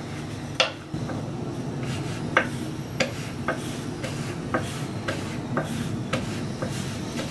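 Wooden rolling pin rolling out a dumpling wrapper on a floured wooden chopping board, clacking against the board about twice a second. A low steady hum runs underneath.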